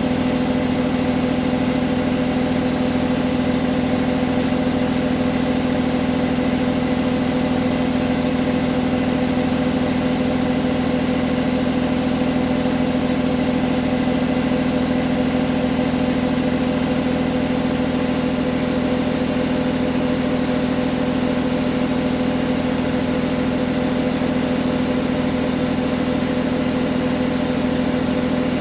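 Hoover washing machine in its final spin at 1400 rpm, the motor and drum running steadily at full speed with a constant-pitch hum and whine.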